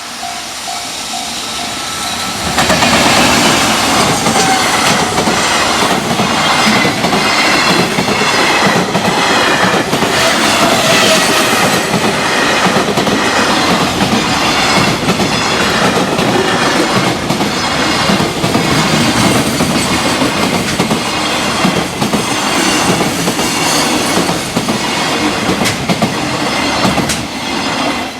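Freight train passing at high speed, its wheels clattering over the rail joints in a long run of regular clicks. The train comes in loud about two and a half seconds in, and the sound drops away sharply right at the end as the last wagon clears.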